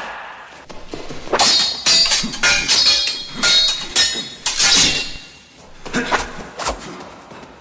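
Swords clashing in a duel: a quick run of about a dozen sharp metal clangs, each ringing briefly, with a short lull about five seconds in.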